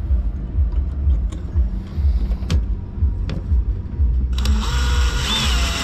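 Cordless drill boring through the steel furler rod clamped in a bench vise: a few clicks over a low rumble, then about four seconds in the drill runs, a bright grinding whine with steady tones, making a hole for a locking pin.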